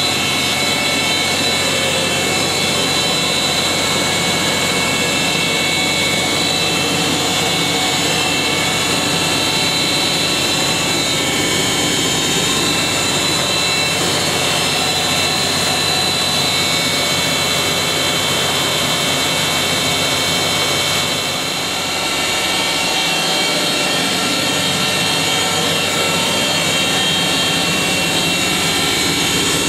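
Miele Automatic W 425 front-loading washing machine spinning its drum at high speed: a steady motor whine with several steady high tones over a dense rush, dipping briefly about two-thirds of the way through.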